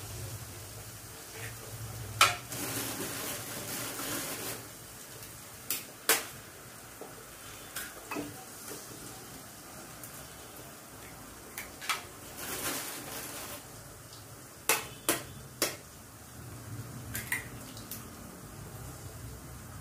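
Eggshells tapped and cracked against the rim of an aluminium kadai, sharp knocks often in pairs or threes. Twice the eggs drop into the hot oil and onion-tomato masala and sizzle briefly.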